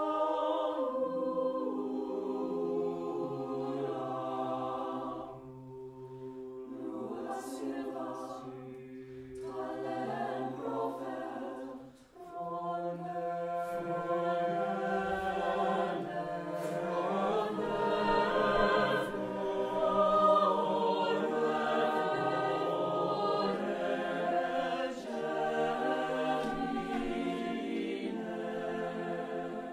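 A choir singing sustained chords in several voice parts, phrase after phrase. There is a short break about twelve seconds in, and the sound swells louder around twenty seconds.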